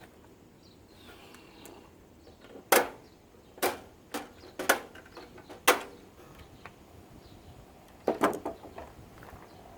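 A series of sharp knocks and clicks, about eight spread over six seconds with a short cluster near the end, from air purifier parts being handled and pulled apart.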